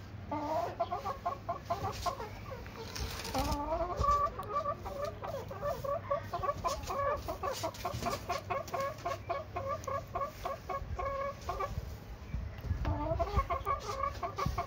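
Aseel chickens clucking in a long, rapid run of short repeated notes, pausing briefly near the end and then starting again.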